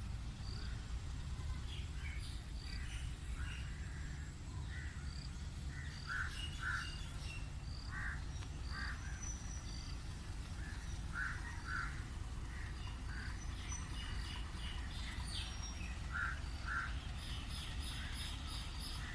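Small birds chirping, with short separate calls scattered throughout, over a low steady rumble.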